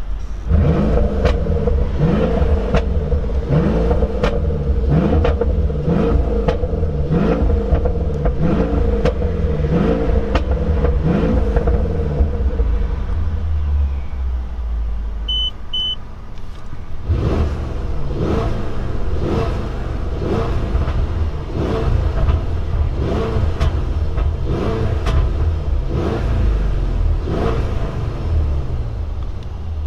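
Mercedes-Benz S500 Coupe's twin-turbo V8 through a Brabus sport exhaust, blipped repeatedly at standstill, about one rev a second. About halfway through the revving eases off, two short beeps sound, and the blips start again.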